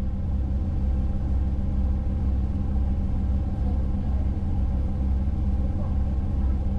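Passenger boat's engine running steadily, heard as a low, even drone.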